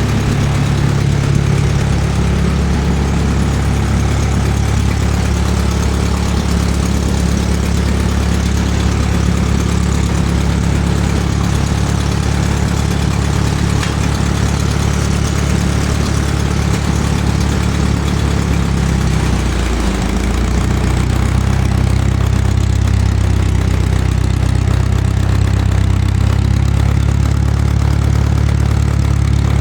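Farmall MD tractor's four-cylinder engine idling steadily, warming up after a cold start while still running on its gasoline starting system before the switch-over to diesel. About two-thirds through, the note wavers briefly, then runs on slightly louder.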